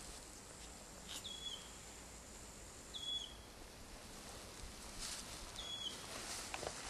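A bird repeating a short, high call, three times about two seconds apart, with a few faint rustles.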